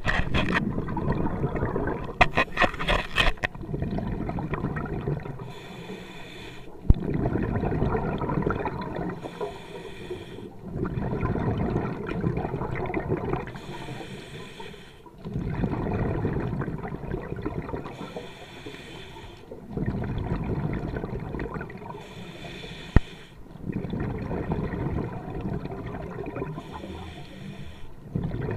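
Scuba diver breathing through a regulator: a short hiss on each inhale followed by a longer rush of exhaled bubbles, repeating about every four to five seconds. A burst of rapid clicks comes a couple of seconds in, and two sharp knocks land near seven seconds and near the end.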